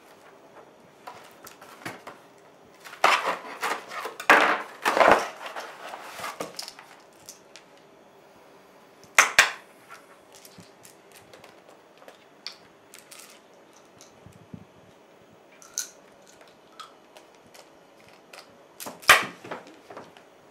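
Paper envelope being handled and opened, with several loud bursts of rustling and tearing in the first part and another sharp rustle a few seconds later, then small scattered ticks. A short loud clatter comes near the end.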